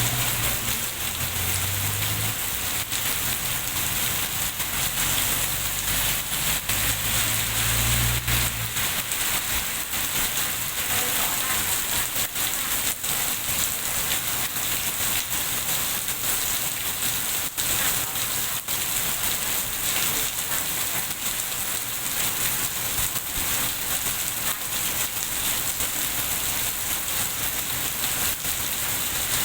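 Steady rain falling and hitting surfaces, with many individual drop ticks. A low rumble lies underneath for the first eight seconds or so, then stops.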